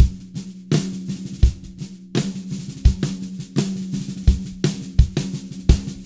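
Dunnett 14x6 snare drum, tuned low at a quarter turn past finger tight, played in a groove over bass drum kicks about every 0.7 s. A low, steady snare tone rings on between the strokes.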